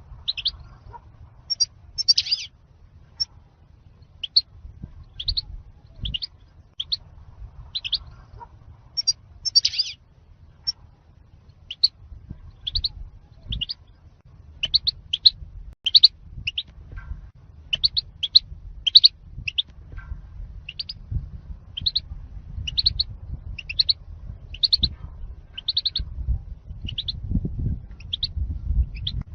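European goldfinch calls: short, high chirps repeated irregularly, about one to two a second, over a faint low rumble. This is a lure recording for trapping goldfinches and for teaching captive birds their song.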